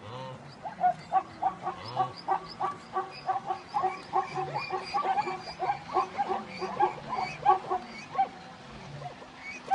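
A herd of wildebeest and zebras calling as it pours down the riverbank to cross: many short calls overlapping, several a second, thinning out near the end.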